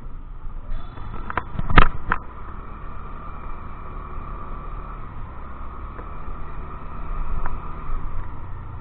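Motor scooter riding along, its engine and road noise mixed with wind rumbling on the microphone, with a few sharp knocks about two seconds in.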